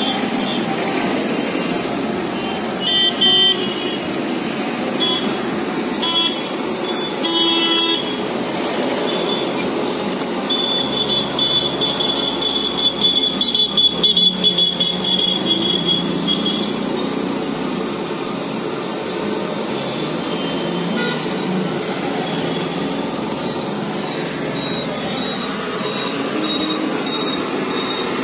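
Street traffic din with vehicle horns: several short toots in the first few seconds, then one horn held for about six seconds near the middle.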